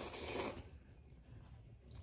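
A noisy slurp of instant ramen noodles being sucked into the mouth, ending about half a second in.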